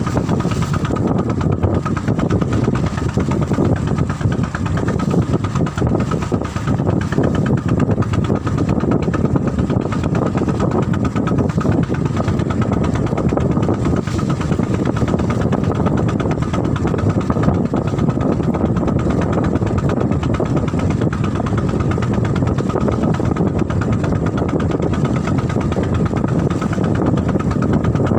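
Boat engine running steadily, with a faint high tone over it.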